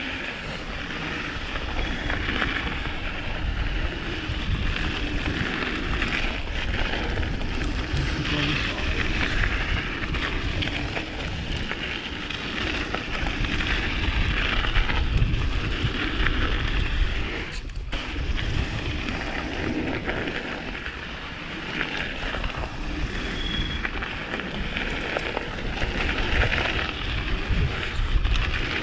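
Mountain bike ridden down a flow trail: tyres rolling and rattling over hard, frozen ground, with wind rushing over a chest-mounted action camera's microphone. Continuous rough noise with a deep rumble, a brief drop-out about eighteen seconds in.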